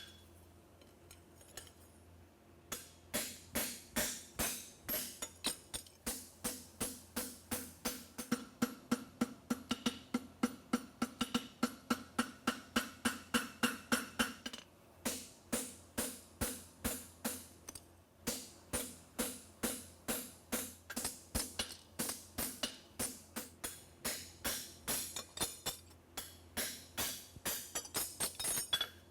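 Blacksmith's hammer striking a hot steel horseshoe on the anvil while forging, in a steady rhythm of about three blows a second, with the metal ringing. The hammering starts about two and a half seconds in and stops briefly a couple of times.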